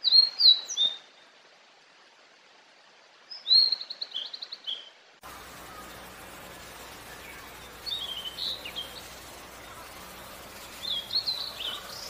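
Male blue-and-white flycatcher singing four short, high whistled phrases a few seconds apart. About five seconds in, a steady background hiss comes in under the song.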